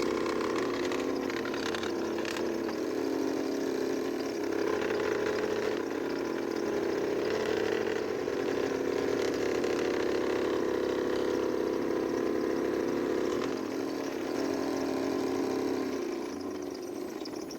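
Electric power tool running steadily as it works wood, easing off a little near the end.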